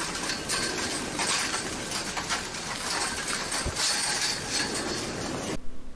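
Blocky lava flow advancing against a metal gate: a steady crackle of many small clinks and tinkles as pieces of cooled crust break and tumble. It cuts off abruptly near the end.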